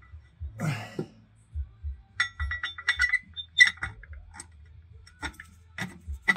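Light metallic clinks and taps of a steel transmission mount, bolts and hand tools being handled and fitted under a car, with a brief scrape about half a second in.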